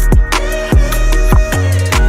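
Background music with a steady electronic beat, a kick drum about twice a second under sustained synth tones.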